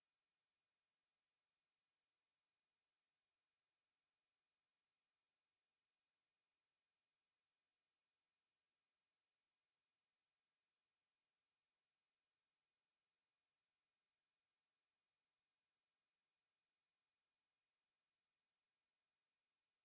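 A single steady high-pitched sine-wave test tone at 6634 Hz, held at a constant level without change.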